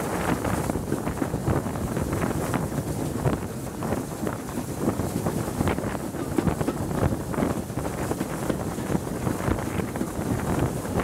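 Wind buffeting the microphone held out of a carriage window, over the steady rush and rattle of a steam-hauled train running at speed.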